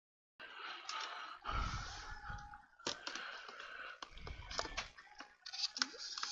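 Irregular small clicks and knocks with rustling, as of objects being handled and moved about.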